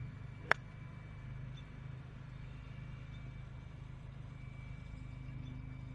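A golf club striking the ball once, a single sharp crack about half a second in, over a steady low hum.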